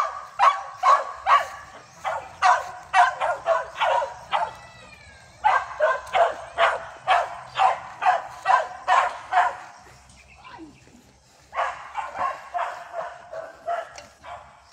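A dog barking rapidly and repeatedly, about three barks a second, in runs broken by short pauses about four and ten seconds in.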